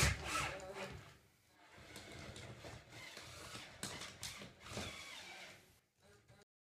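Makita cordless drill/driver driving screws into a plywood floor: the motor whine is loudest at the start and stops within the first second. After a short pause it runs again more quietly and unevenly, with a few sharp clicks, until it stops about a second before the end.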